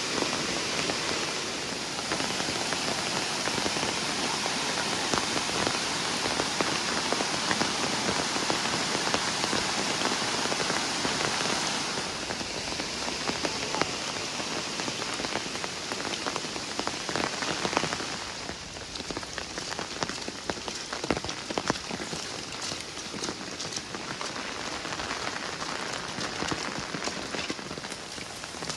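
Steady rain falling, a dense hiss of drops. About eighteen seconds in the hiss eases a little and separate drops click more distinctly.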